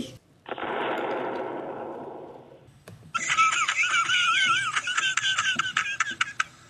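A bomb explosion sound effect: a sudden burst of noise that fades away over about two seconds. About three seconds in comes a high, wavering cackling laugh lasting about three and a half seconds.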